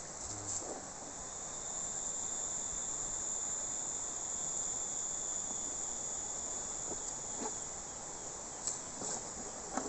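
Insects calling in a continuous high-pitched drone, with a few faint clicks.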